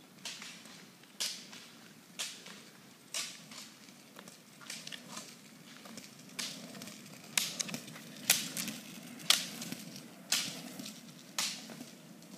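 Roller-ski poles' metal tips clicking sharply on asphalt about once a second, over the low rolling rumble of the roller-ski wheels on the road. Both grow louder near the middle as the skating roller skier passes close, then fade.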